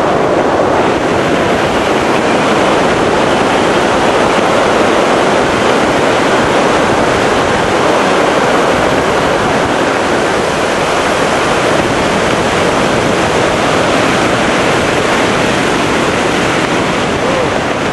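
Steady, loud rush of wind over the microphone during a tandem parachute descent under canopy.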